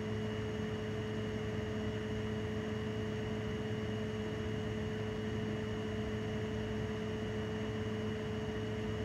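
A steady hum with a few held tones over an even hiss, unchanging throughout, like a fan or appliance running.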